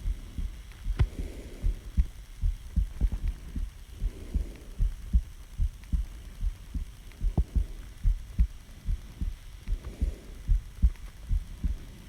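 A person's heartbeat recorded close against the chest: a steady run of low thumps, with soft breaths swelling in and out every few seconds.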